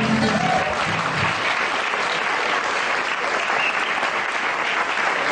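Audience applauding, with the final guitar chord ringing out beneath it for the first second or so.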